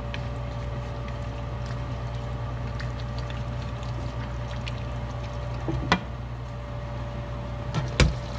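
A wooden spatula stirs a thick, saucy chicken and vegetable stew in a stainless steel pan, with wet sauce sounds over a steady low hum. There is a sharp knock about six seconds in, and a glass pot lid clanks down onto the pan near the end.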